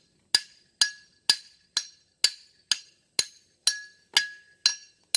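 Hammer striking the steel axe head in a steady run of ringing metallic blows, about two a second, working the head back off the wooden handle.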